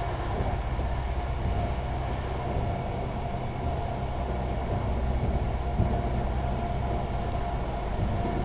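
Pesa 218Mc diesel train running at speed, heard from inside the carriage: a steady low rumble of the running gear and engine with a faint steady whine above it.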